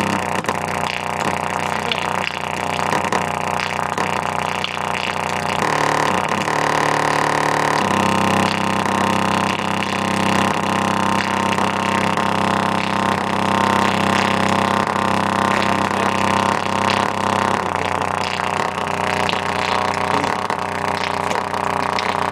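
Bass-heavy music with long held notes played loud through a bare 6x9-inch oval car speaker driver with no enclosure. The held notes change pitch a few times.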